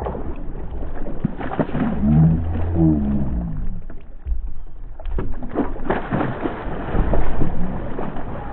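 Knocks, thumps and water sloshing around a kayak during a hurried scramble to net a bass that has come unhooked beside the boat, with many sudden knocks throughout and a short low pitched sound about two seconds in.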